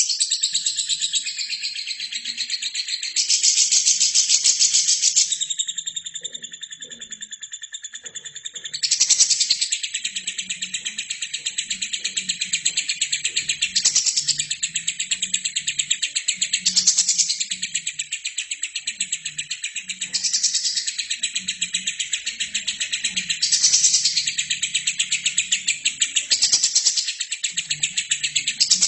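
Albino lovebird singing a long, unbroken chatter of very rapid high chirps, swelling louder every few seconds.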